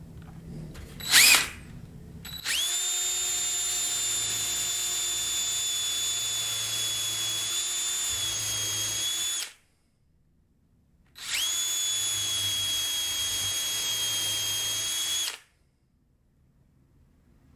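Handheld electric power tool motor: a brief rising whine about a second in, then two steady runs at constant speed, the first about seven seconds long and the second about four, each stopping abruptly.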